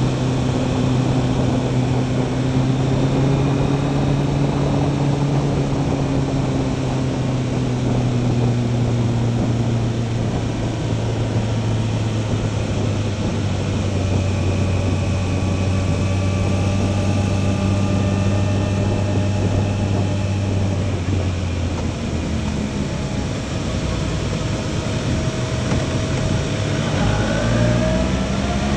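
Motorcycle engine running under way, with wind and tyre noise on the wet road. The engine note sinks slowly as the bike slows into a bend, then climbs near the end as the rider accelerates out of it.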